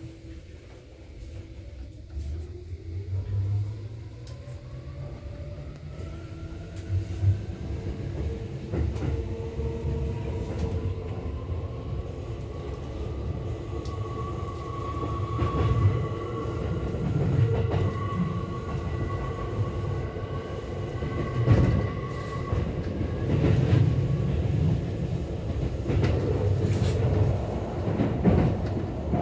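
Tokyo Metro 17000 series motor car pulling away and accelerating, heard inside the car. The traction inverter and motors whine in several tones that climb steadily in pitch for about fourteen seconds, hold level, then fade out about three-quarters of the way through. Under this runs a steady rumble of wheels on rail, with occasional clicks.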